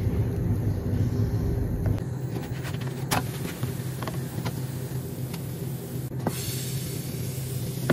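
Steady low mechanical hum in a kitchen, with a few faint clicks and taps.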